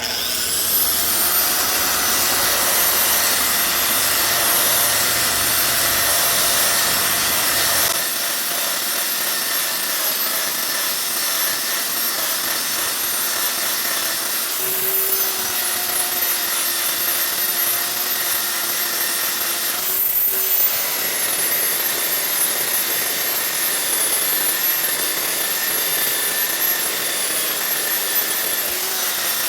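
Makita 9403 4x24 belt sander with a coarse 40-grit belt starting up abruptly, then running steadily as it sands wood molding down to a line, its high whine sagging slightly and recovering as the belt bites.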